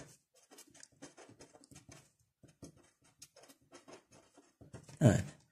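Felt-tip marker writing on paper: faint, quick, short scratching strokes. A brief, louder voice sound cuts in about five seconds in.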